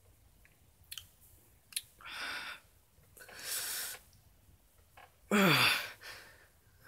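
A man sighing and breathing out heavily in distress: two breathy exhales, then a louder voiced sigh about five seconds in whose pitch falls. There are a couple of small mouth clicks in the first two seconds.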